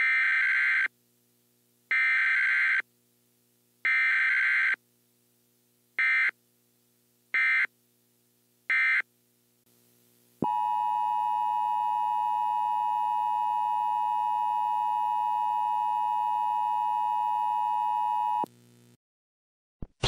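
Emergency Alert System broadcast tones. First come three buzzing digital header bursts, each just under a second and about two seconds apart, then three shorter bursts. Then the steady two-tone EAS attention signal sounds for about eight seconds and cuts off.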